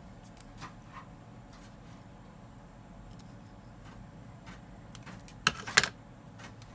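Light handling clicks of wires and small tools, then scissors set down on a wooden workbench: two sharp clacks in quick succession near the end.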